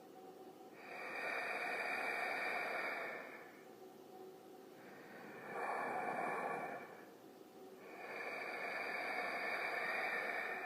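Creepy breathing sound effect: slow, heavy breaths, three long rushes of air, each swelling and fading over two to three seconds, the middle one shorter.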